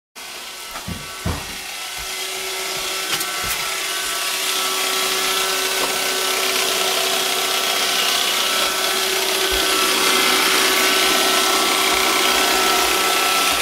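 iRobot Roomba robot vacuum running: a steady whirring hiss with a few faint whining tones, growing gradually louder over the first ten seconds or so. A few light knocks near the start.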